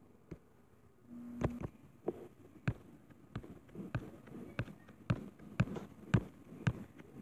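Fingertip taps on a touchscreen, a string of sharp taps that settles into about two a second in the second half, with a brief low hum about a second in.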